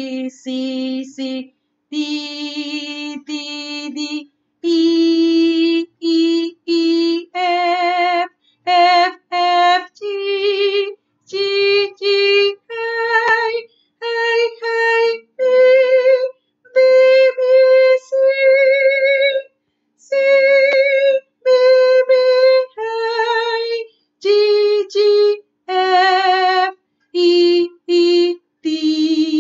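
A woman singing the C major scale unaccompanied, one held note at a time with short breaks between. She climbs step by step from middle C to the C an octave above about halfway through, then comes back down to middle C.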